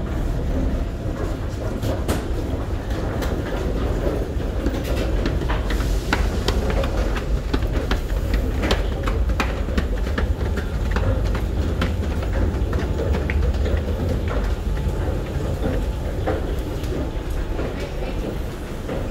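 Steady low rumble of a metro train heard in the station passages, with many sharp clacks of footsteps as people climb the stairs.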